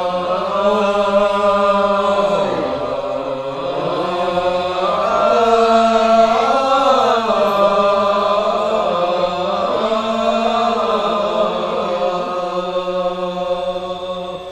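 A man's voice chanting a verse of a Malay hikayat in the Sasak nembang style, unaccompanied: long drawn-out notes that glide slowly up and down, with few breaks.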